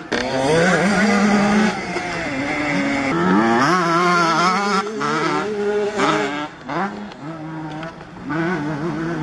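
Two-stroke motocross bikes racing past, their engines revving high and dropping back repeatedly as they shift gears.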